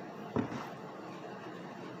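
A single short thump about half a second in, with a softer one just after, over steady background hiss.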